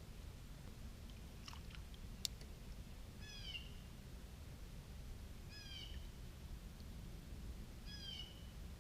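A bird calling three times, a short call about every two and a half seconds, with a few faint clicks before the first call.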